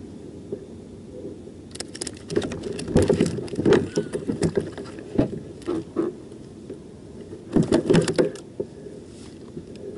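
Clattering knocks and handling noises on a kayak while a small channel catfish is unhooked, in two bursts: a longer run of sharp knocks and rattles from about two seconds in, and a shorter one near the end.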